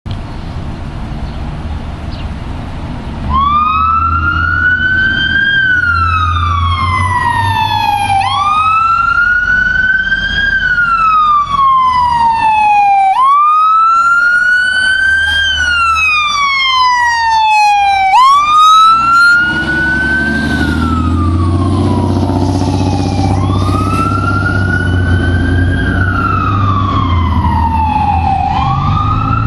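Fire engine's siren wailing, rising and falling about every five seconds. It starts about three seconds in over the low rumble of the engine, with a couple of louder blasts a little past halfway.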